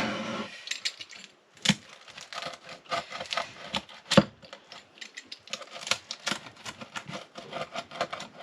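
Cutlery clicking and scraping on a plate while a crispy thin-base pizza is cut and eaten, as a string of irregular small clicks and crackles with two sharper knocks.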